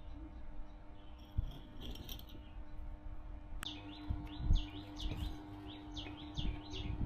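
A bird chirping: a quick string of short, falling chirps starting about three and a half seconds in, over a steady low hum and scattered low knocks.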